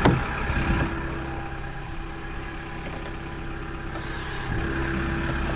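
Loader's diesel engine idling steadily, with a brief hiss about four seconds in.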